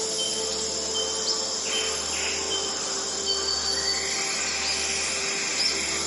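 Dawn nature soundscape: insects chirping in a steady high pulse, with a few short falling bird calls, over a soft held drone of ambient relaxation music.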